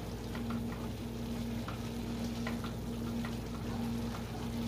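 Cabbage and carrot soup simmering in a stainless steel pan while a wooden spatula stirs it, with small scattered scrapes and taps of the spatula against the pan. A steady low hum runs underneath.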